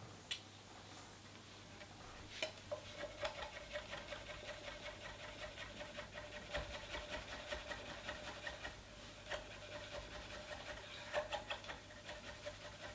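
Chef's knife mincing mushrooms finely for duxelles on an end-grain wooden cutting board: a quick, even run of light knocks of the blade on the wood, about three a second. It follows a couple of single knocks and settles into its rhythm about two seconds in.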